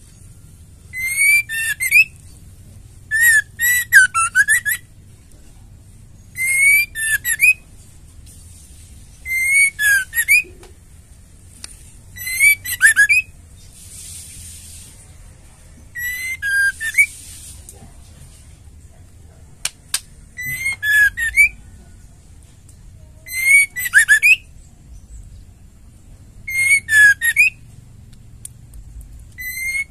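Female white-rumped shama singing short, loud phrases of quick rising and falling whistled notes, about one phrase every three seconds.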